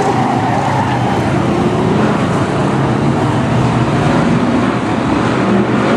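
Several Brisca F1 stock cars' V8 engines running together as the pack circles the track, a loud steady drone of mixed engine notes.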